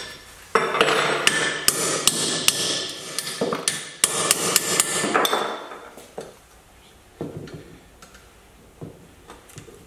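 Hammer blows on a steel bolt seized by contact corrosion in an aluminium Porsche 911 rear trailing arm: a fast run of sharp metallic strikes for about five seconds, then a few lighter knocks.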